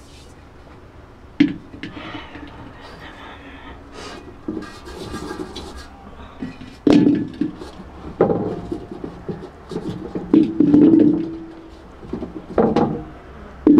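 Aluminium cookware being handled: a pot set down and potatoes knocking against a large aluminium basin. A series of separate knocks, each with a short ring, louder in the second half.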